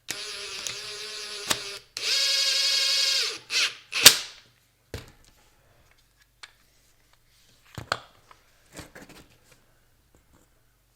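A small power drill's motor whining in two short runs, the second louder and higher-pitched, followed by a sharp knock about four seconds in and a few scattered clicks and taps of handled tools and parts.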